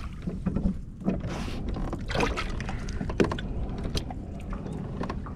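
Water sloshing against a kayak's hull over a steady low rumble, with scattered knocks and clicks, the sharpest just after three seconds.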